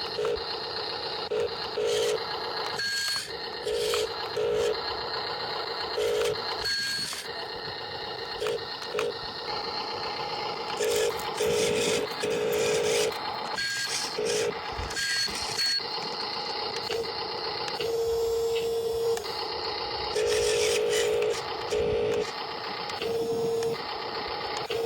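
Short electronic beeps of one pitch in irregular runs, with a longer held beep about 18 seconds in and again near the end, over the steady whir of small electric motors and plastic gearboxes from radio-controlled construction models at work.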